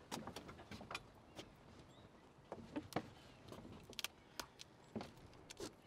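Scattered crinkles and soft clicks of paper backing being peeled off a self-adhesive window corner flashing piece, which is then pressed by hand into the corner of the window frame.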